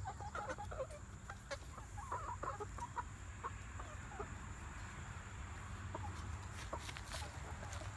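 Chickens clucking, a run of short wavering calls, thickest in the first three seconds and thinning out afterwards, with a few scattered clicks.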